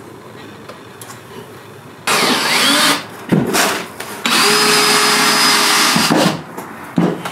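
Cordless drill running in two bursts: a short one about two seconds in, its pitch dipping and recovering as it loads up, then a longer steady run about four seconds in. Light knocks from handling fall between the two bursts.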